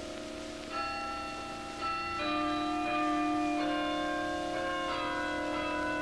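Bells ringing a slow sequence of notes, a new bell struck every second or so, each ringing on under the next.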